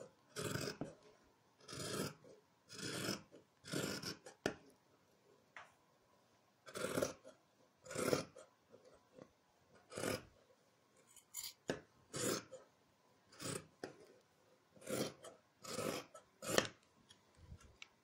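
Scissors cutting through folded cotton jersey fabric: a run of short rasping snips, about one or two a second, with a brief pause about a third of the way in.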